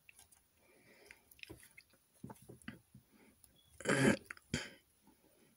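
Faint clicks and light rattling of LEGO plastic parts being handled and moved, with a louder short rustle or knock about four seconds in and a smaller one just after.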